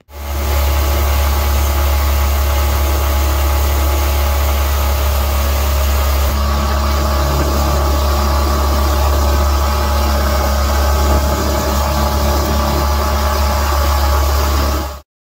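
Mud Skipper surface-drive mud motor running steadily at speed under way, over a steady rush of water spray and wind. The sound cuts off suddenly near the end.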